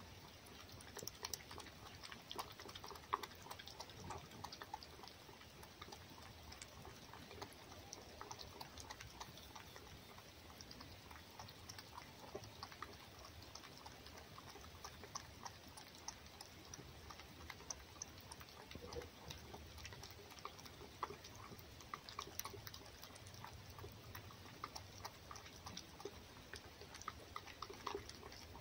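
A fox eating egg from a bowl: faint, irregular lapping and chewing clicks.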